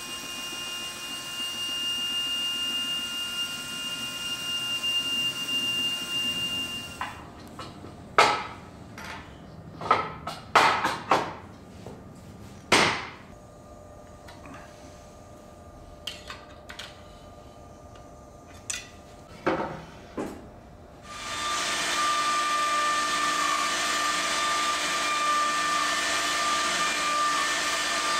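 Woodworking power tool running with a steady whine that stops about seven seconds in. Then several sharp knocks and clicks as metal fittings on the machine's aluminium rails are adjusted by hand. About three-quarters of the way through, a router starts and runs steadily over an oak block.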